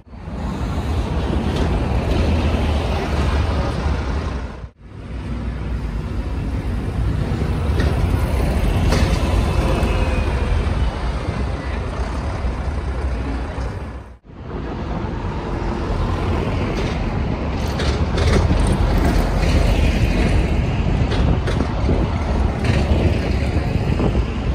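Street traffic dominated by double-decker buses' engines running as they move along and pull up, with a steady low rumble. The sound cuts out briefly twice.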